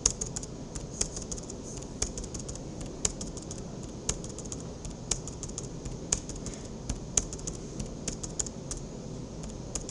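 Computer keyboard keys clicking: a sharp key press about once a second, with short quick runs of lighter clicks between, as a CLI command is recalled and re-entered again and again.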